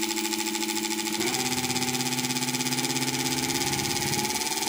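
Homemade permanent-magnet motor-generator, a rewound motor fitted with eight magnets, running at low speed from its controller: a steady electric hum and whine of several tones. The tone shifts about a second in as the throttle is changed.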